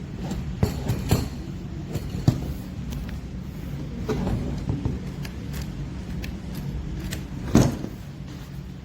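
Scattered clicks and knocks, one louder knock about seven and a half seconds in, over a steady low rumble.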